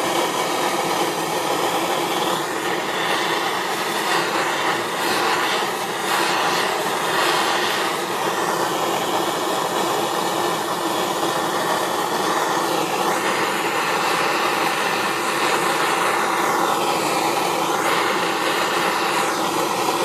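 Handheld propane torch burning with a steady hiss of the flame as it plays over an aluminum transmission case, heating it toward brazing temperature. Its tone shifts slowly now and then.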